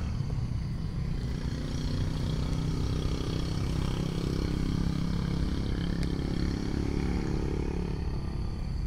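A motor vehicle's engine running and passing by, its low hum swelling a couple of seconds in and easing off near the end.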